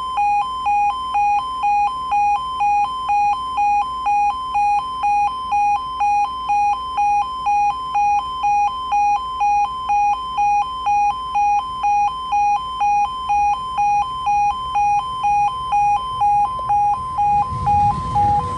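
Level crossing warning alarm sounding continuously: two tones, one higher and one lower, alternating about twice a second. Near the end the low rumble of a Class 170 diesel multiple unit rises as the train draws past.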